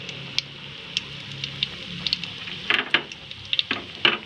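Breadcrumb-coated corn dogs frying in hot oil in a pan: a steady sizzle with scattered crackles, and a few louder pops in the second half.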